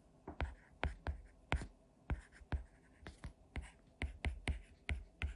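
A stylus tapping and writing on a tablet's glass screen: short, sharp, irregular clicks, about three a second, as an equation is handwritten.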